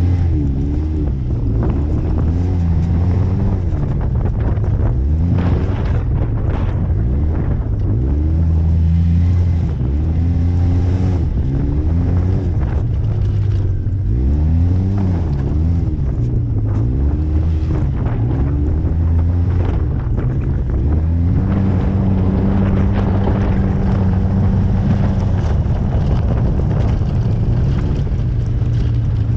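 Polaris RZR S side-by-side's engine under way, its revs rising and falling again and again as the throttle goes on and off, with a stretch held at steady revs past the middle. Wind noise on the microphone runs underneath.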